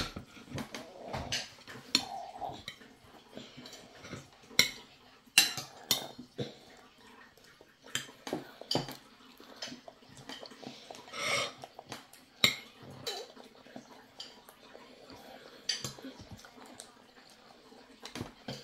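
Metal fork clinking and scraping against a ceramic dinner plate while scooping up food, in sharp, irregular clicks every second or so.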